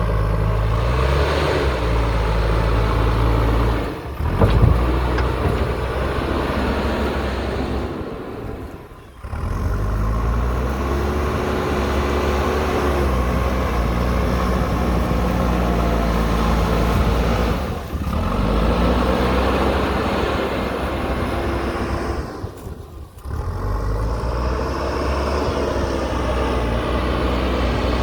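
JCB backhoe loader's diesel engine running while it works, its pitch rising and falling as it revs up and down. There is a loud knock about four seconds in, and the sound drops away briefly four times.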